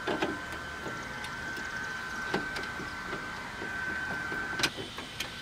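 Small metallic clicks and taps of a folding Torx key working the screws out of a car's trunk-lid grab handle, with a sharper click near the end. A steady high whine runs behind until shortly before the end.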